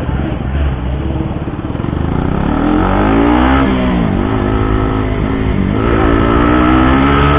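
KTM RC 200 BS6's single-cylinder engine, its exhaust sound modified, accelerating while ridden. The pitch climbs from about two seconds in, drops at gear changes about four and six seconds in, and climbs again after each one. It is heard through a mic inside the rider's helmet.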